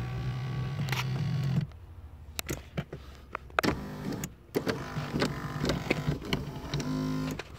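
Power seat motor of a 2001 Chrysler Town & Country running as it drives the seat, stopping after about a second and a half, a few clicks and knocks, then running again from about halfway until shortly before the end. The owner puts this stop-and-go running down to a broken tooth on the seat's drive gear.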